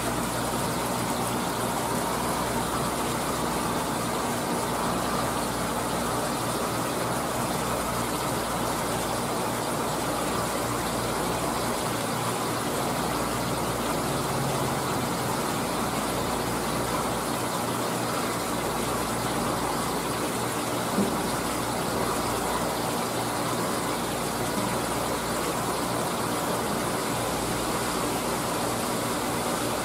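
Steady rushing of circulating water with a low motor hum from an aquarium pump and filter, unchanging throughout; a single short knock about 21 seconds in.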